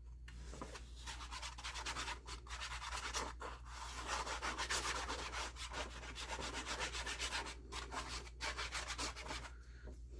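Quick, repeated rubbing strokes on paper, several a second with a few short pauses, as glue is worked along the edge of a paper-covered journal cover.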